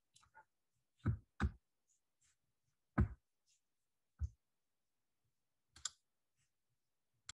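A handful of separate clicks at a computer, single clicks one to two seconds apart with a quick pair about a second in, the loudest near the middle and a fainter one at the very end.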